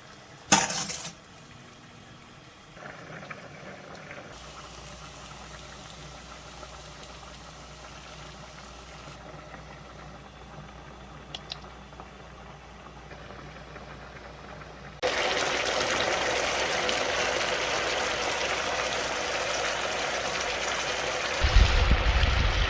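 Cooking sounds in a series of cuts: a sharp clatter about half a second in, a stretch of quieter kitchen noise, then from about 15 seconds a loud steady hiss of food cooking in a pan, with low thumps near the end.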